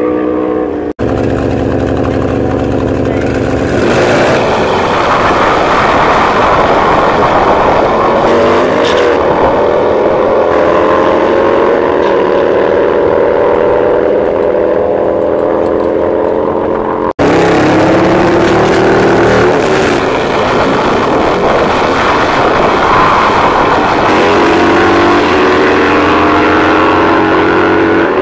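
Drag-racing motorcycles accelerating hard down the strip, their engines revving up in rising steps through each gear change. The sound cuts out sharply twice, about a second in and again about two-thirds of the way through, each time picking up on another run.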